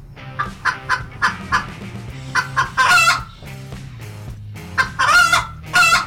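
Hen clucking and cackling: runs of short clucks, each run building into a drawn-out squawk, twice.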